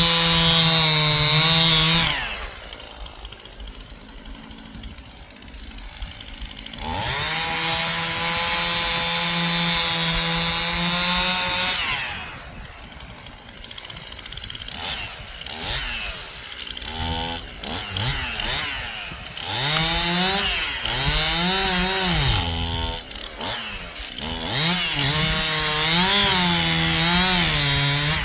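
Stihl chainsaw running at full throttle through two long cuts in wood, dropping back to idle between them. Later it is revved up and down repeatedly.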